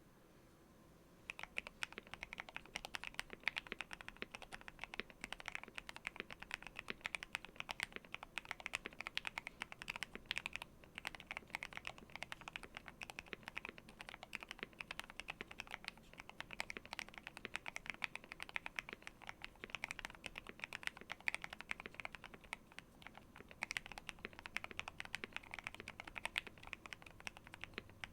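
Fast, continuous typing on a KBDfans KBD67 lite mechanical keyboard with lubed Gateron Black Ink V2 linear switches, tape-modded and foam-filled, each keystroke a quick click, starting about a second in.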